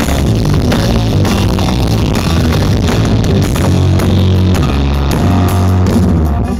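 Loud music with a heavy, booming bass line played through a large 'horeg' parade sound system stacked with many subwoofers.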